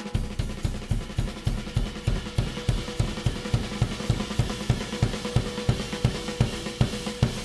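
Drum kit playing a fast, even pattern of bass drum and snare strikes, about five a second, with cymbals and hi-hat, in a live jazz performance. A faint held note sounds under it from about halfway.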